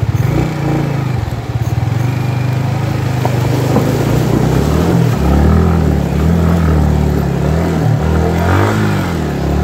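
Vehicle engine running, steady for the first few seconds, then rising and falling in pitch again and again as the throttle is opened and closed.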